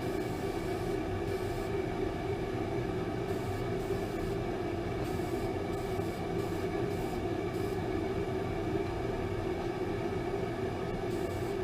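A steady machine drone with a constant hum, running evenly throughout, with faint hiss that comes and goes.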